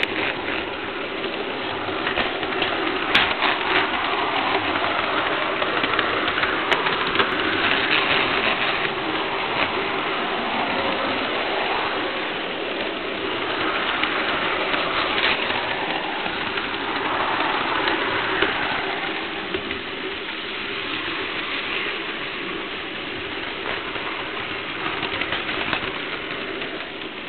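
HO-scale model train running along its track, heard up close: a steady motor hum with a running rattle of wheels on rail that swells and eases over several seconds.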